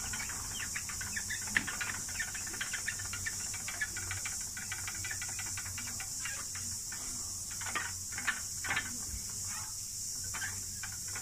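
Cicadas singing in a steady high, hissing chorus, with many light scattered clicks over it.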